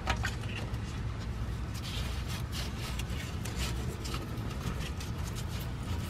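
Light rubbing and scratching of a gloved hand and a filler hose nozzle against the rear differential's fill port, with a steady low hum underneath.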